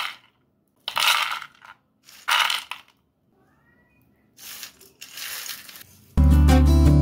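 Crisp-fried, batter-coated peanuts rattling onto a plate, tipped on in three or four short pours. Strummed guitar music comes in loudly about six seconds in.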